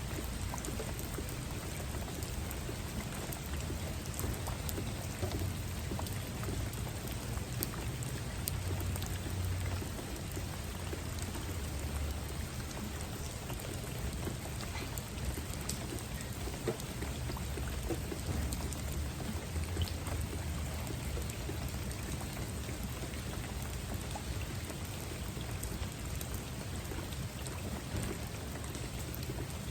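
Steady rainfall with many individual drops pattering on a surface. A low rumble swells and fades underneath it every few seconds.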